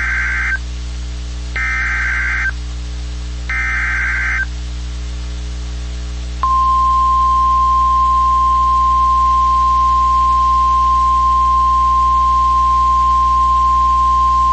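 NOAA Weather Radio Emergency Alert System signal for a severe thunderstorm warning. It opens with the tail of one SAME data burst and then two more: harsh digital screeches of about a second each, a second apart. About two seconds later the steady single-pitch 1050 Hz warning alarm tone begins and holds.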